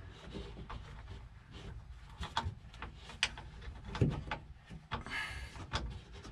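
Small metal clicks and light knocks of hands working the clutch cable end at the clutch arm of an air-cooled VW transaxle, threading the adjusting nut onto the cable. The clicks come singly and irregularly, about half a dozen over a few seconds.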